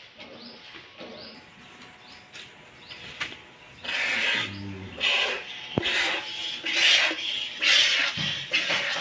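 Hand milking a cow: jets of milk squirting into a plastic bucket, heard as a run of hissing squirts about one to two a second that starts about four seconds in. Before that it is quieter, with faint bird chirps.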